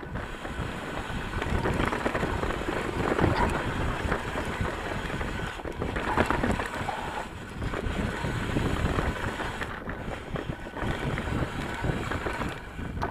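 Ibis Mojo HD3 mountain bike riding down a dirt trail: wind buffeting the microphone over the rumble of tyres rolling on dirt and the bike rattling.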